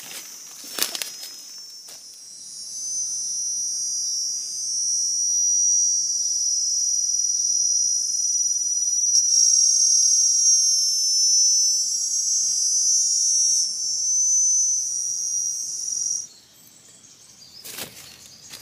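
Insect calling in the forest: a loud, steady, high-pitched buzz that starts about two seconds in and cuts off suddenly near the end. A few brief rustles or knocks come before it.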